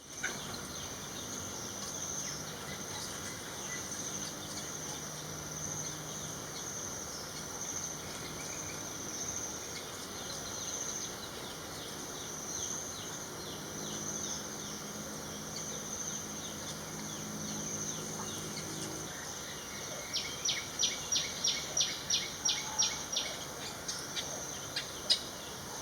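Garden ambience in the Thai countryside: a steady, high-pitched insect drone throughout. About twenty seconds in, a rapid run of sharp, high bird notes, about four a second, lasting some five seconds.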